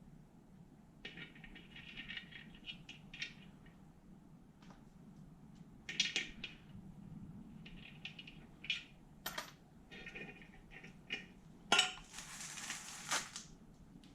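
Small metal engine parts clinking and rattling against each other as they are handled during a Honda NSR50 engine teardown, in scattered short clinks that ring briefly. Near the end there is a short hissing rush.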